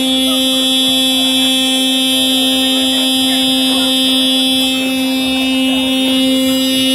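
A steady, unbroken buzzing drone with a low fundamental and many overtones, with faint voices of people beneath it.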